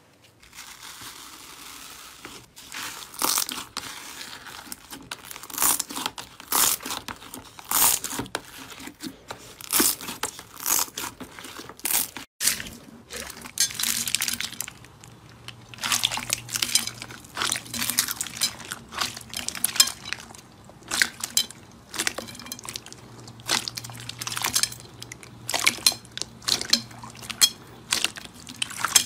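Hands pressing and squeezing slime, making a run of short crackling pops and squishes every second or so. About twelve seconds in it changes to clear purple slime packed with white foam beads, pressed flat with crunchy popping.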